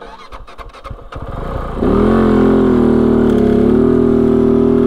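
Kove FSE 450R rally bike's 450cc single-cylinder engine starting up about two seconds in, after a few light clicks, then idling steadily.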